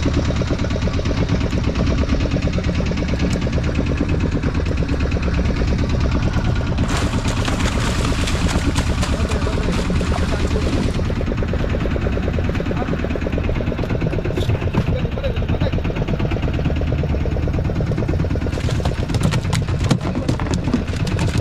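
Fishing boat's engine running at idle with a steady low rumble. From about seven seconds in, splashing for a few seconds as a hooked fish thrashes at the surface beside the hull.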